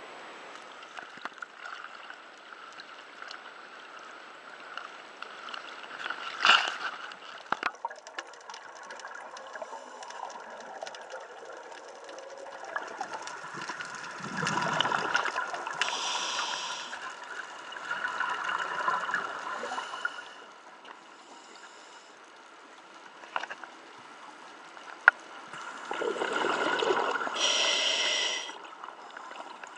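Underwater scuba breathing through a regulator: bouts of gurgling exhaled bubbles, twice followed by the short hiss of an inhalation. There is also one brief loud noise about six seconds in.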